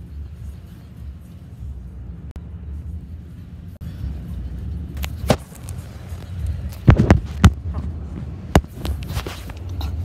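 Low, steady road rumble inside a moving car, with several sharp knocks and rubbing noises from a phone being handled against its microphone, about five seconds in, around seven seconds, and again at eight and a half.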